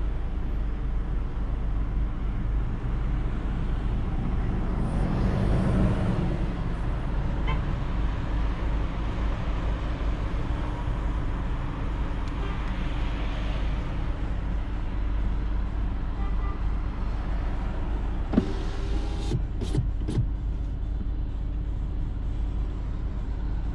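Steady low rumble of a Volkswagen Polo idling in stopped traffic, heard from inside the cabin. Traffic noise swells louder about five seconds in, and a few sharp clicks come near the end.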